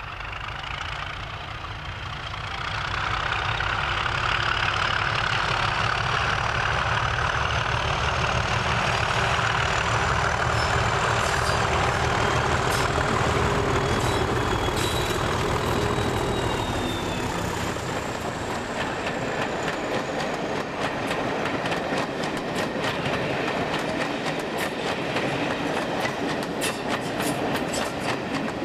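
Two Class 37 diesel locomotives working hard as they pass, their English Electric V12 engines running loud with a high turbocharger whistle that rises and then falls in pitch. From about eighteen seconds in the engines fade and the coaches' wheels clatter over the rail joints in quick clicks.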